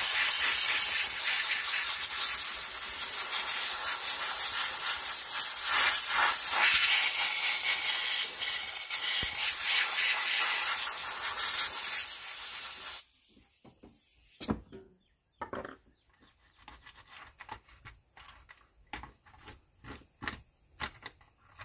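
A loud, steady hiss that cuts off suddenly about thirteen seconds in, followed by faint scattered clicks and taps.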